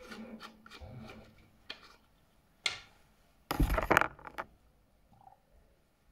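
Handling noise of lab equipment being moved on a bench: a few light clicks and knocks, and a brief loud rustle about three and a half seconds in.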